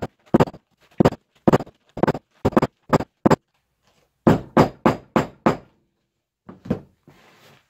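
Repeated short knocks, about two to three a second: eight in a row, a pause of about a second, five more, then two near the end.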